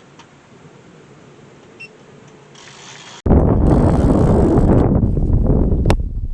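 Quiet faint mechanical ticking, like a fishing reel's clicker, for about three seconds. Then the sound jumps suddenly to loud, rumbling wind buffeting the microphone.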